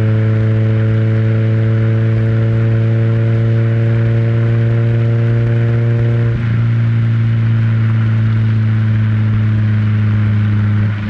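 Renault Twingo's four-cylinder engine and exhaust, recorded close to the exhaust while driving, giving a steady droning note at constant engine speed. The note briefly drops away about six seconds in and again near the end.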